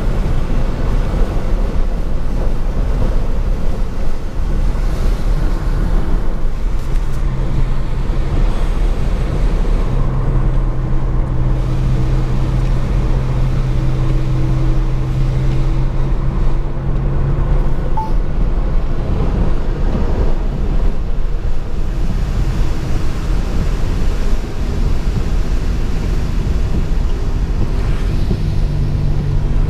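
Steady road noise heard inside a car driving on a wet highway: a low rumble of tyres on rain-soaked pavement and the engine. An engine hum holds a steady pitch from about 7 to 17 seconds in, and comes back near the end.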